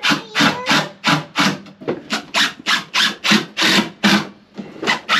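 Rhythmic scraping strokes on a wooden board, about three a second.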